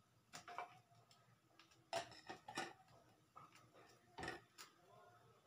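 Faint, scattered clicks and light knocks of kitchen things being handled at a gas stove, a handful over a few seconds. The loudest come about two seconds in and just after four seconds.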